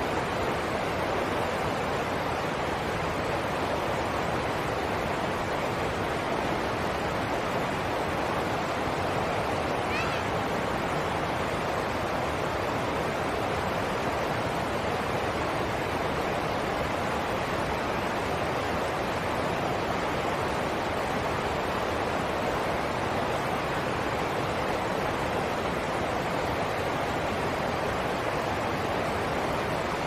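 Shallow rocky stream rushing over a small cascade and rapids: a steady, even rush of water.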